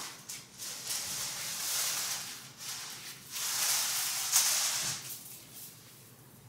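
Ribbon rustling as it is unwound and handled, in two long swells of rustling, the second one louder, dying away near the end.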